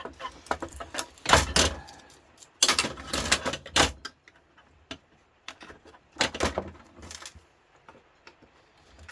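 Parts of a George Foreman grill's casing being handled and prised at by hand and with tools: irregular clatters, scrapes and knocks. The loudest bursts come about a second and a half in, around three seconds in and about six seconds in, with quiet gaps between.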